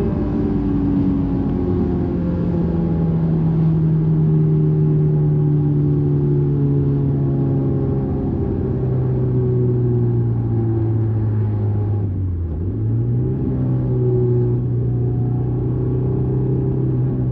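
2001 Honda S2000's 2.0-litre F20C inline-four running under way, its note slowly falling as the revs drop. About twelve seconds in the pitch dips briefly, then climbs back to a steady, higher note.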